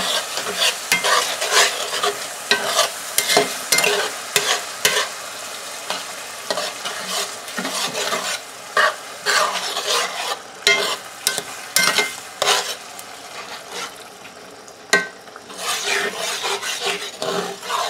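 A metal spatula scraping and clacking against a cast-iron skillet as crushed tomatoes are stirred into sautéed mushrooms, over a steady sizzle from the hot pan.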